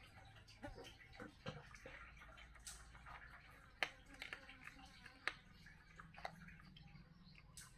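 Cat eating dry kibble from a plastic bowl: quiet, irregular crunches and clicks of food against the bowl, with a few sharper ones after the midpoint.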